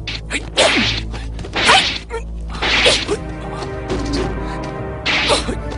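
Fight-scene sound effects: a run of swishing whooshes of fast moves and whacks of blows, about five in all, over background music.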